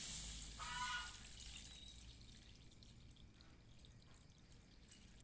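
Coconut milk being poured into a wok over seasoned fish, trickling and dripping, with a short drip about a second in; the pouring dies away over the first couple of seconds.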